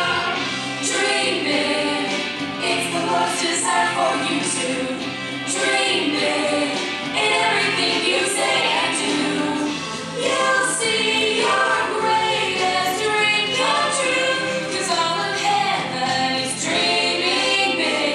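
Christian pop song with a group of voices singing over instrumental backing.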